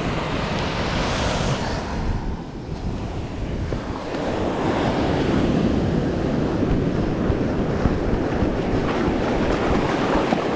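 Ocean surf breaking and washing over the shallows, with wind buffeting the microphone. The surf grows louder about four seconds in.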